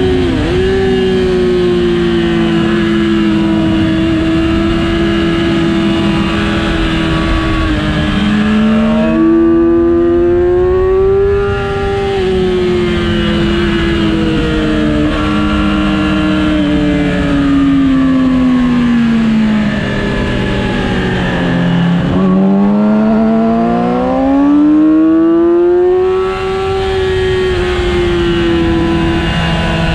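2007 Yamaha R6's inline-four engine at high revs on track, its pitch rising and falling as the bike accelerates and slows. It drops to lower revs twice, about a third of the way in and again about three quarters through, before climbing back up. Steady wind rush runs underneath.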